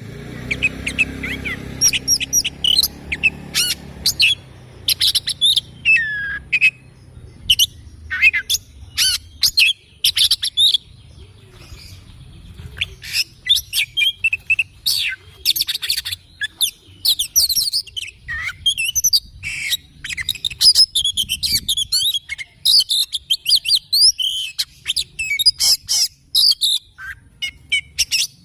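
Oriental magpie-robin (kacer) singing a fast, varied run of chirps and sliding whistled notes.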